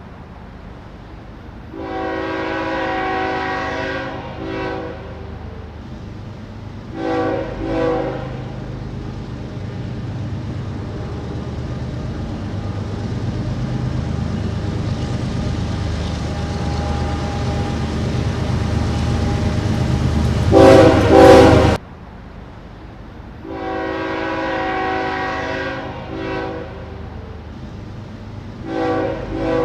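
Freight locomotive air horn sounding a series of long and short blasts over a train's rumble. The rumble builds until a very loud horn blast about two-thirds of the way through, which cuts off suddenly; then another set of long and short blasts follows.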